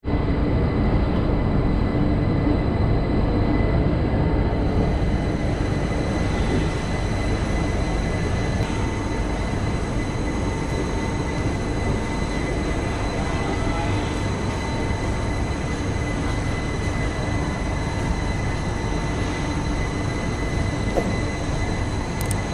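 Shramjeevi Express passenger train running on the track, a loud steady rumble of its wheels on the rails.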